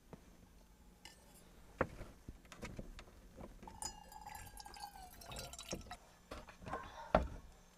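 Water running from the plastic tap of a water bucket into a stainless steel mug, its pitch rising as the mug fills. A few knocks and clicks of the mug and tap, the loudest near the end.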